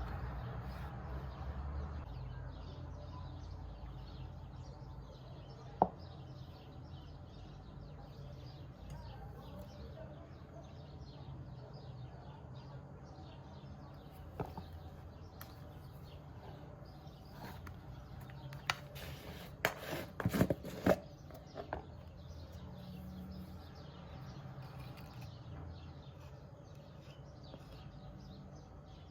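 Low steady background hum with a few sharp clicks and knocks: one about six seconds in, and a close cluster of louder ones about two-thirds of the way through.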